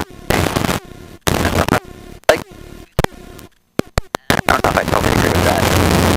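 Helicopter cabin noise heard through the intercom, breaking up with several sudden dropouts and sharp clicks, then running steadily again from about four and a half seconds in.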